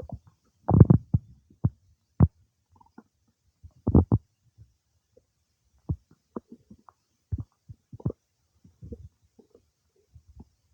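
Human stomach and bowel gurgling during digestion: short, irregular gurgles and pops, the loudest cluster about a second in.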